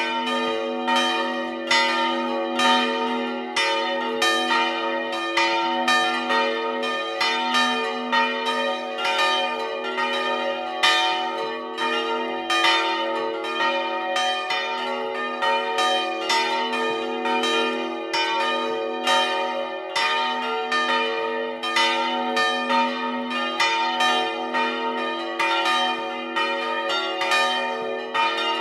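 Several bronze church bells swinging and ringing together in a full peal, their strikes overlapping unevenly over a steady bed of lingering hum tones.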